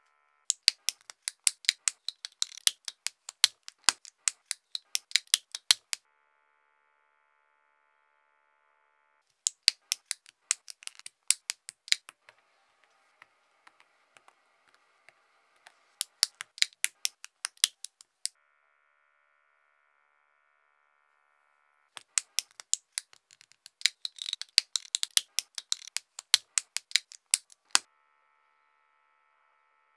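Four runs of rapid, sharp clicks, several a second and a few seconds each, with quiet stretches between.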